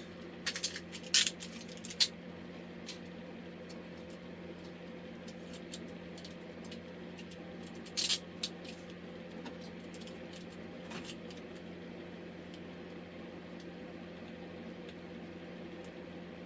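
Metal handcuffs and chain clinking and clicking as they are handled: a few sharp clinks in the first two seconds, another cluster about eight seconds in and a fainter one near eleven seconds, over a steady low hum.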